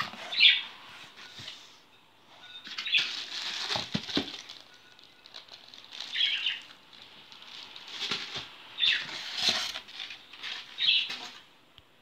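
Vacuum cleaner packaging being handled during unboxing: plastic wrap rustling and crinkling in irregular bursts, with a few knocks as parts are moved in the cardboard box.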